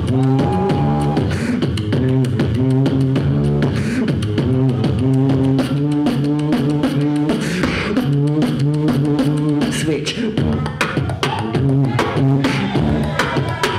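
Solo beatboxing into a handheld microphone: rapid vocal kick, snare and hi-hat sounds in a steady rhythm over a pitched vocal bass line that holds short notes and moves between a few pitches in a repeating pattern.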